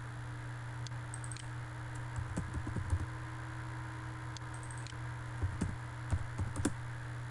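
Computer keyboard keys and mouse buttons clicking in two short bursts, with a number being typed into a CAD dimension box, over a steady low background hum.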